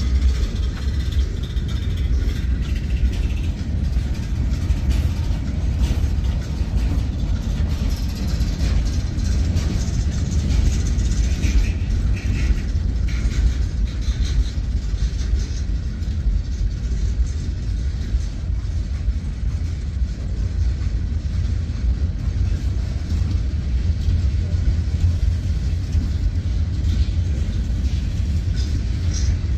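Norfolk Southern mixed freight train's cars rolling past: a steady low rumble with wheel and rail noise.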